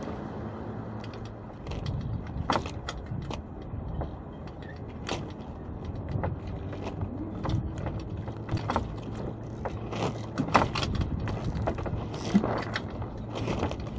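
Small sailboat's deck hardware and rigging clicking and knocking irregularly while a line is hauled by hand, over a steady low hum.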